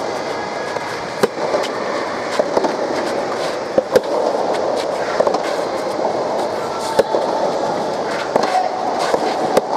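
Soft tennis rally: sharp pocks of the soft rubber ball being struck by rackets, about one every second or so, over a steady background din.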